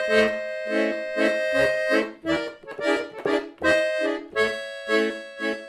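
Accordion playing a lively signature tune in short, rhythmic chords, with held chords now and then.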